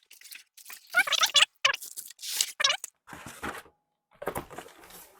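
Soundbar's cardboard box and packaging being opened by hand: several bursts of scraping, tearing and rustling, with short squeaky streaks about a second in and again near three seconds.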